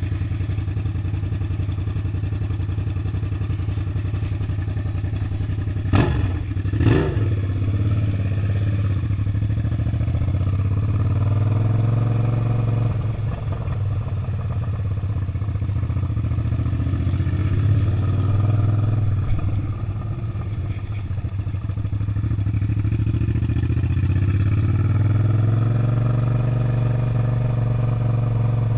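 Suzuki SV650's 645 cc V-twin engine running steadily, its note rising and falling gently a few times. Two sharp clicks come about six and seven seconds in.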